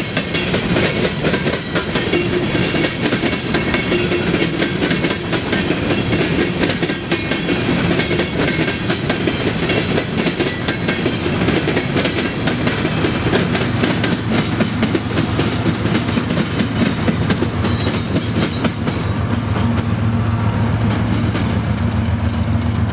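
Empty coal cars rolling past, their wheels clicking rapidly over the rail joints. About halfway through, the train's rear distributed-power GE ES44AC diesel locomotives pass, adding a steady low engine drone that carries on as they move away.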